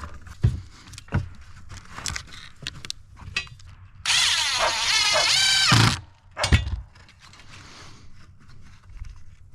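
Power drill driving a screw into wood in one run of a little under two seconds, its motor pitch wavering as it turns, with knocks and clicks of handling wood and tools before and after.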